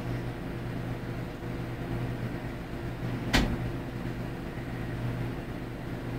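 Vehicle engine idling with a steady low hum, and a single sharp knock a little over three seconds in.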